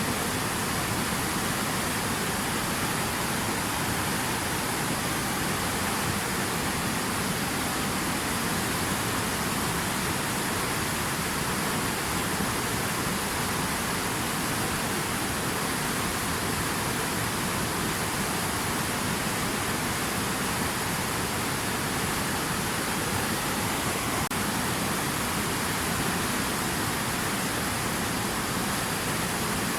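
Steady rushing water, an even unbroken hiss with no separate splashes or drops standing out.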